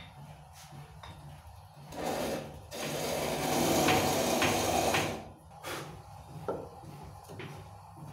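A hand-held turning tool cutting a spinning wooden spindle on a treadle lathe built from a Singer treadle sewing machine. A loud scraping, shaving hiss runs from about two to five seconds in, with lighter scrapes and knocks before and after it over a steady low rumble.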